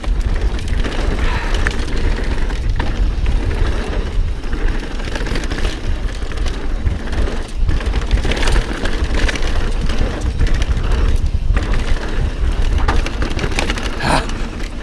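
Mountain bike riding down a rough trail: tyres rolling over dirt and rock with the bike rattling and knocking, and wind rumbling on the helmet camera's microphone. A brief brake squeal near the end as the brakes are grabbed.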